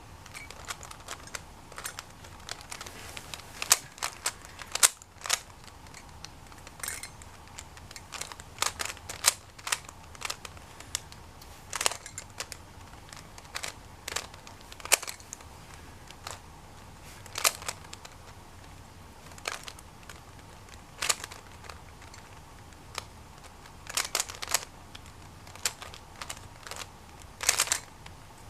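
Plastic 3x3 speed cube being turned by hand during a solve: irregular clicks and clacks of its layers turning, sometimes in quick clusters of several.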